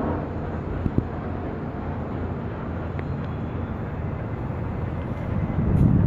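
Outdoor city ambience: a steady low rumble of distant traffic. Two short clicks come about a second in, and the low rumble swells louder near the end.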